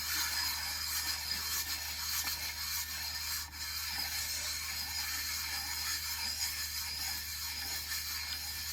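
Lapping tool turning inside the pinion-side bearing race of a Harley-Davidson crankcase, coated with lapping compound: a steady gritty rubbing. It is grinding a little material off the race so the rollers will fit.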